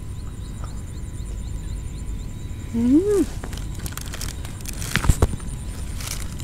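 A person chewing a mouthful of raw beef liver, with a short rising-and-falling 'mmm' of enjoyment about three seconds in and a few sharp wet mouth clicks around five seconds. A low steady wind rumble and faint high chirping run underneath.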